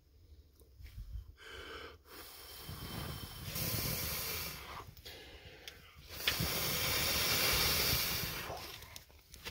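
A person blowing hard on smouldering kindling in several long breaths to coax a flame up. The longest, loudest blow comes near the end.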